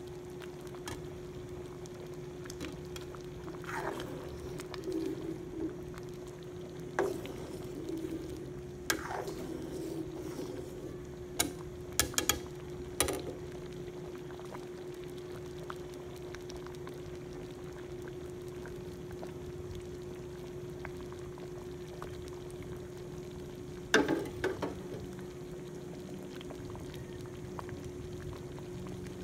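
Ladle stirring a thick simmering mung bean stew in a pot, knocking against the pot several times, in a cluster about halfway through and loudest near the end. A steady hum runs underneath.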